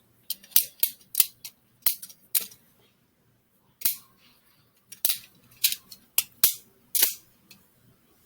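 Lego balisong being flipped: its plastic handles and blade clack against each other in quick, irregular clicks, with a pause of about a second midway.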